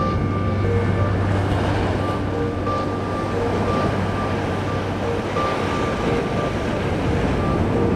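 Sea surging and washing against rocks with wind rushing over the microphone, a steady rough noise throughout. A faint high tone comes and goes over it.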